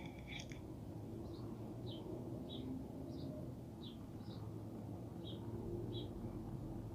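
A bird chirping: about ten short, high chirps, spaced roughly half a second to a second apart, over a low steady rumble.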